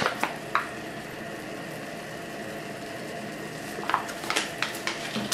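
Cream sauce with chicken and broccoli simmering in a frying pan, a steady sizzle. Short crackles of a spice packet being handled come just after the start and again near the end as hot pepper is shaken in.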